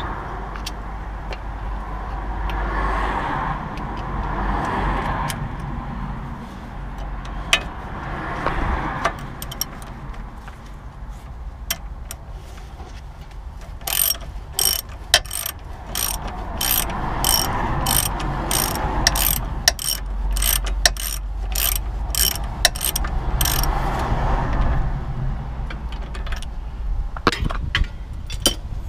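Hand socket ratchet clicking as a nut is run onto the bolt through the rear bush of a VW Golf Mk4 lower suspension arm: a run of sharp, evenly spaced clicks, about two a second, starting about halfway through and lasting some ten seconds, with scattered knocks and tool handling before it.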